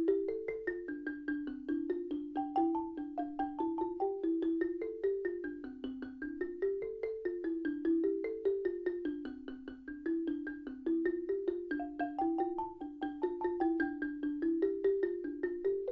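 Background music: a melody of quick, evenly struck notes moving stepwise up and down, its phrase coming round again about every ten seconds.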